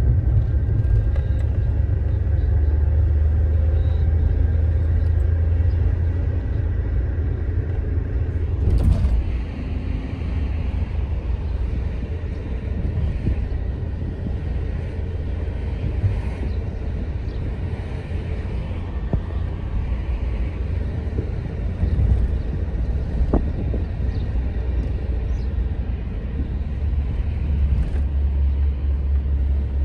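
Toyota Carina driving: its engine runs steadily under a low road rumble, heard from inside the cabin.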